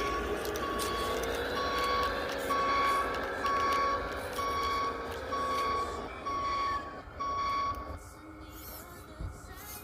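Battery-operated toy construction vehicle sounding its reversing beep, a steady electronic beep about once a second, over the whine of its small motor. The motor stops about six seconds in and the beeping about eight seconds in.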